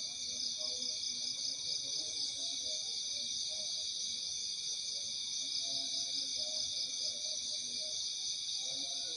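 Steady night chorus of crickets and other insects, several high pitches sounding at once without a break, with faint low sounds coming and going underneath.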